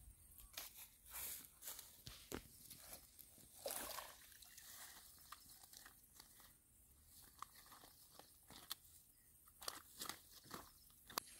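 Faint, scattered rustling and crunching of handling: a person working a mesh net bag in waterside grass, with a few sharper clicks about four seconds in and again near the end.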